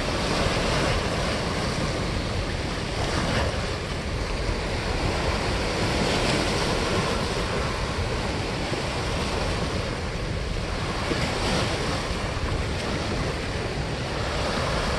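Steady rush of turbulent water pouring out below a dam spillway, with wind noise on the microphone.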